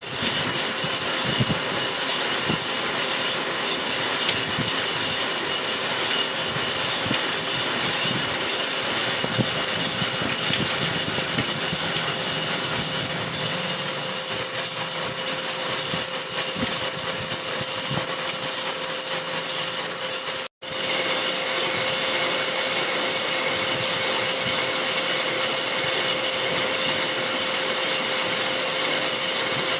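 Metal lathe taking a finishing cut: a steady high-pitched whine from the cutting tool on the turning workpiece, over the running machine. The sound cuts out for an instant about two-thirds of the way through, then carries on unchanged.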